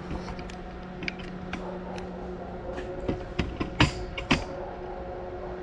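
Knocks and creaks of a heavy wooden LVL beam being handled and lifted, scattered through, with the loudest few knocks bunched about three to four and a half seconds in, over a steady hum.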